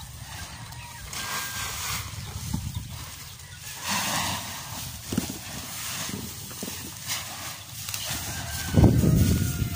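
Threshed rice grain being scooped from a pile with a plastic bucket and poured into a sack, in hissing rushes of sliding grain. A few faint high calls come in, and a loud low rumble near the end.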